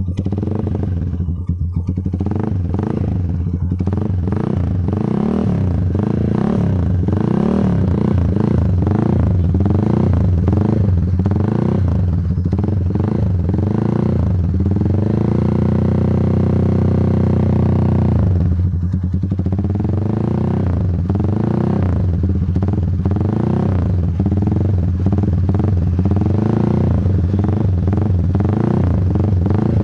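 Z200S motorcycle engine breathing through an aftermarket SC pipe with a big-elbow header, revved in repeated quick throttle blips. About halfway it is held at a steady higher speed for a few seconds, then the blipping resumes.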